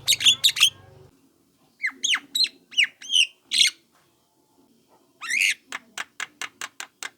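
Young Javan myna calling: harsh squawks and short downward-sliding notes, then a longer call about five seconds in followed by a quick run of sharp clicking notes, about five a second.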